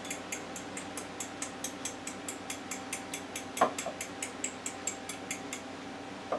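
A fork beating two eggs in a bowl: quick, regular clinks of the fork against the bowl, about four to five a second, with one louder knock partway through, stopping shortly before the end.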